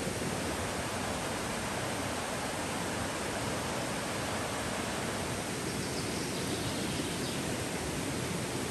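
Steady rushing of a shallow river.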